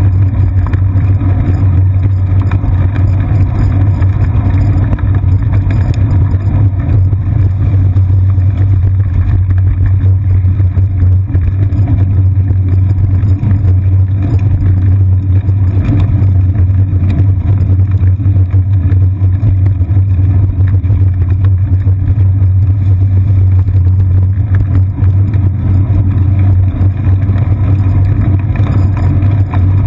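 Steady low rumble of wind and road vibration picked up by a seat-post-mounted GoPro Hero 2 camera as the bicycle rolls along a paved path.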